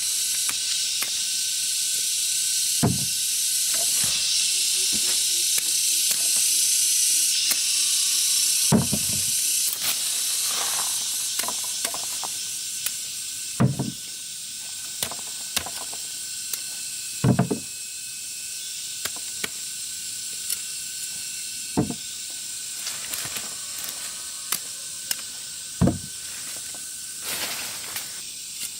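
A steady high-pitched hiss that slowly fades, with a thin constant tone in it and a dozen or so scattered knocks and thumps.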